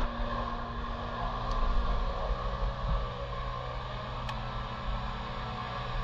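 Boat motor running steadily: a low, even hum over a steady hiss.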